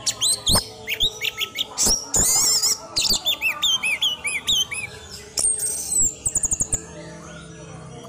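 Orange-headed thrush (anis merah) singing a fast, varied song of high chirps, slurred whistles and trills. Past the middle comes a high, falling whistle, then a quick run of clicks, and it falls quiet near the end.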